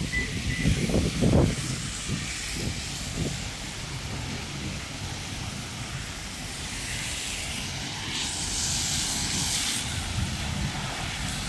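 Steady hiss of rain and car traffic on a wet road, with a louder, brighter hiss from about eight to ten seconds in. Low buffets of wind strike the microphone about a second in.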